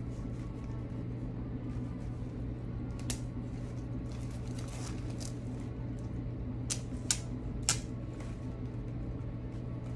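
A few sharp clicks and snaps from handling artificial rose stems and leaves, one about three seconds in and three close together near seven seconds, over a steady low hum.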